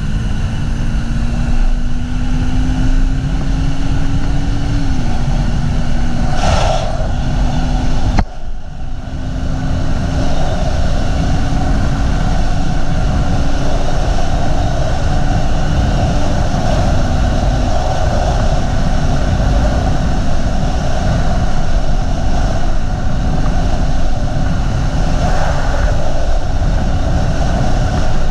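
Bajaj Dominar 400's single-cylinder engine pulling hard at speed under heavy wind blast on the microphone. Its note climbs slowly, drops at an upshift about five seconds in and again around sixteen seconds, then holds steady during the top-speed run.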